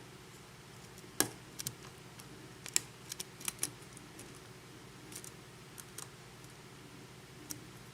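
Lock pick working the pin stack inside a Schlage-keyway KIK lock cylinder under tension: faint, irregular metallic clicks and ticks as the pins are lifted, sharpest about a second in and near three seconds, with a quick run of clicks around three and a half seconds.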